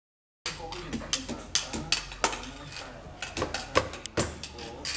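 Irregular sharp clicks and knocks of a plastic toy tool tapping and scraping against a plastic ride-on toy car at its rear wheel, about a dozen strikes.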